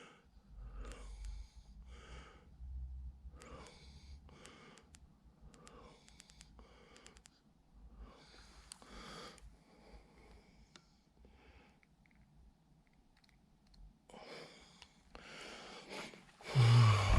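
Footsteps scuffing and crunching on a debris-strewn floor in a large empty room, one short step every half second to a second, pausing briefly, then a heavy thump near the end.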